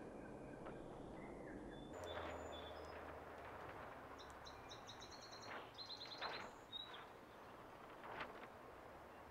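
Faint bird chirping: a run of short, high, rapidly repeated notes about halfway through, over low background noise. A few soft clicks come from hands working the timing belt at the cam pulley, the last and sharpest near the end.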